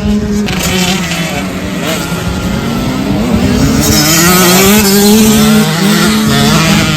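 Several small race engines running together at racing speed, their notes rising and falling as they accelerate and ease off. They are loudest about four to five and a half seconds in.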